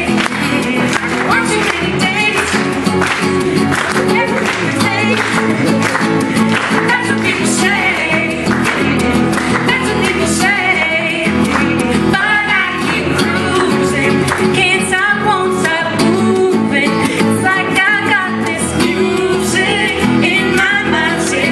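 Live pop-country song: a woman sings lead over a strummed acoustic guitar and an electric guitar, with steady clapping in time.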